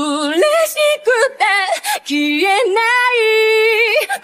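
A woman's solo lead vocal sung a cappella, isolated from its backing track: short sung phrases, then a long note held with vibrato in the second half.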